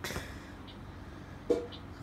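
A soft click at the start, then a sharper, louder click about a second and a half in, over a low steady hum.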